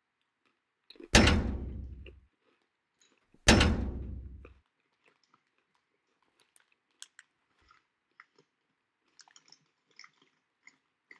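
Two loud crunching bites into Arnott's Shapes Sausage Sizzle cracker biscuits, about a second in and again about three and a half seconds in, each fading over about a second. Faint scattered chewing clicks follow.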